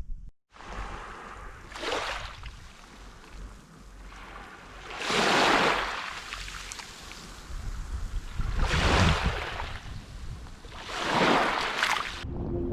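Sea waves breaking and washing in, four swells about three seconds apart, over a low wind rumble on the microphone.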